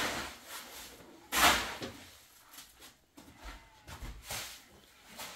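Short scraping sounds, the loudest about a second and a half in, with softer rubs and knocks between them.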